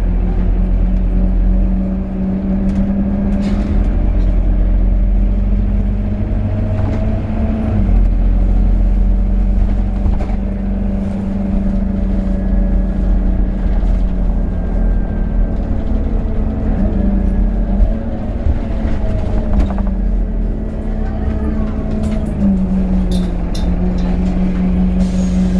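Scania N270UD bus's nine-litre five-cylinder diesel and ZF Ecomat automatic gearbox, heard from inside the passenger saloon while the bus drives along. It is a steady drone whose pitch shifts in small steps several times as the gearbox changes gear and the bus speeds up and slows, with faint gliding gearbox whine above it and a few rattles.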